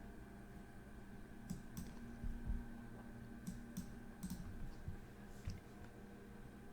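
Scattered clicks from a computer mouse and keyboard being worked, about half a dozen, some in quick pairs, over a faint steady room hum.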